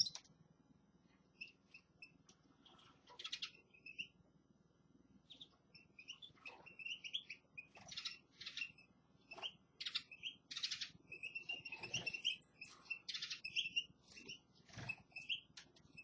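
Small caged finches twittering: scattered short chirps at first, then a busier run of calls and quick trills from the middle on.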